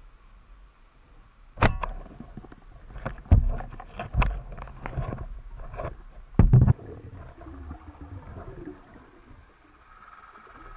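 A run of sharp knocks and clunks heard underwater, with a loud one about a second and a half in and a loud double knock about six and a half seconds in. A faint steady hum comes in near the end.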